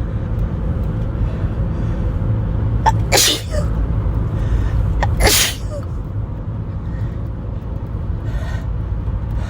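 A person sneezing twice, about two seconds apart, in the middle of an uncontrollable sneezing fit brought on by a tickle in the nose. Each sneeze is a sharp intake followed by a loud explosive burst. Underneath runs the steady low rumble of the moving car.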